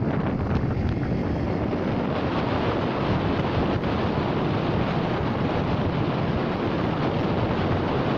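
Steady wind rushing over the microphone of a phone filming from a motorcycle moving at road speed.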